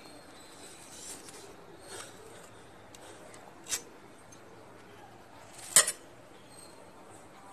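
A metal spoon clinking against a steel pan while stirring a liquid agar mixture: a few faint knocks, then two sharper clinks about halfway through and two seconds later, the second the loudest.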